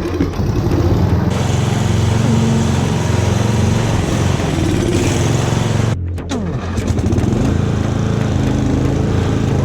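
Engine of a 1995 Craftsman riding lawn mower running steadily. It dips briefly about six seconds in.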